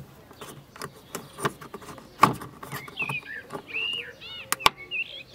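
Clicks and knocks of a plastic parking-light bulb socket being handled and twisted into the back of a Nissan Primera P12 headlamp. A bird chirps several times from about three seconds in.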